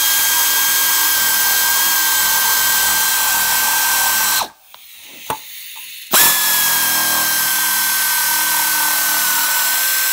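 Pneumatic air shears cutting 18 gauge sheet steel: a loud steady high whine over a hiss. It stops about four and a half seconds in, a couple of clicks follow, and it starts again about six seconds in.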